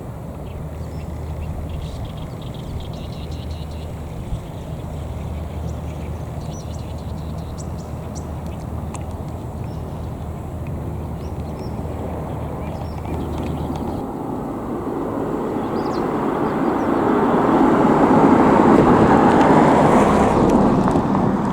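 A vehicle approaching and passing: a steady low engine hum, then the noise of the passing vehicle swells over several seconds and is loudest near the end.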